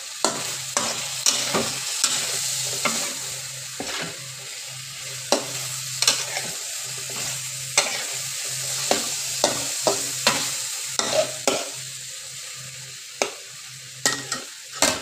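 Baby corn and pork sizzling in a hot wok as a spatula stir-fries them. Sharp, irregular clicks and scrapes of the spatula against the wok sound over a steady sizzle.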